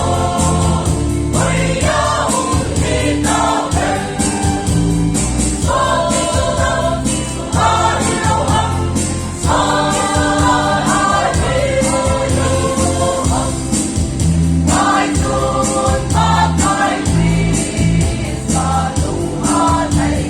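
A choir singing a gospel song, backed by a band with a steady beat.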